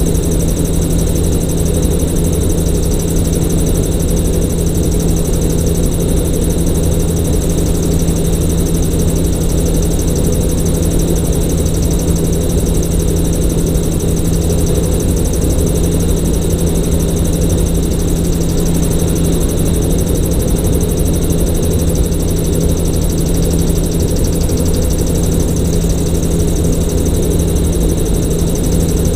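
Gyrocopter in flight, its engine and propeller running at a constant steady pitch: a strong low hum with a thin high whine above it and a rush of air noise.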